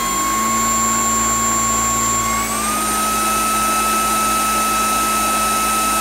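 MOOSOO U19 cordless stick vacuum's brushless motor running with a steady high whine over rushing air, first on its low power setting. A little over two seconds in it is switched to high power, and the whine steps up in pitch and holds there.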